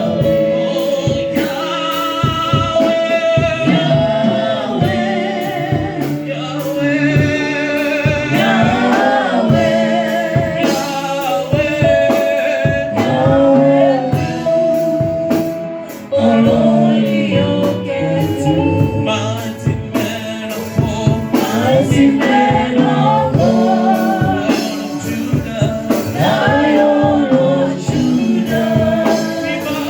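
Gospel song: voices singing over instrumental accompaniment with a steady beat.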